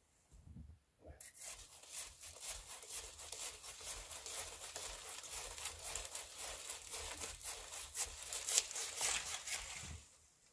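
Hand saw cutting through a small tree's branches with quick back-and-forth strokes, starting about a second in and stopping near the end.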